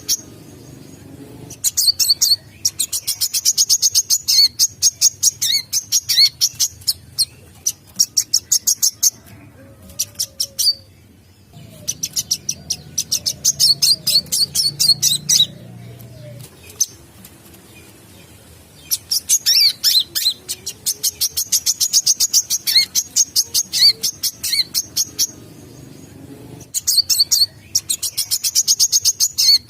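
Sunbird song: long bouts of rapid, high-pitched chittering trills, each lasting several seconds, with short pauses between them.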